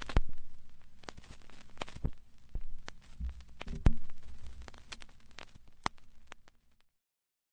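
Stylus riding a vinyl record's lead-in groove: scattered clicks and pops of surface crackle over faint hiss and a low hum. The loudest pops come just after the start and about four seconds in, and the sound cuts off suddenly near the end.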